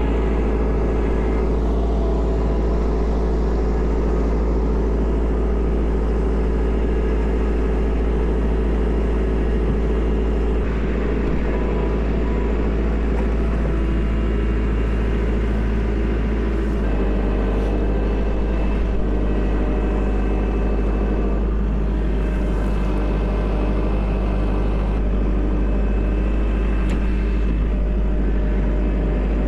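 Kubota L4701 tractor's four-cylinder diesel engine running steadily under working load, with a slight change in its note a little past halfway through.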